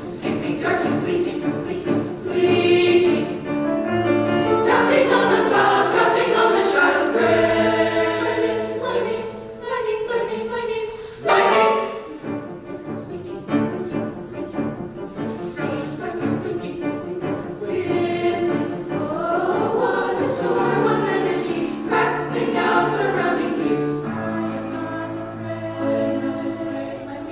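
Mixed chamber choir singing in harmony with piano accompaniment, with a sudden loud accent about eleven seconds in.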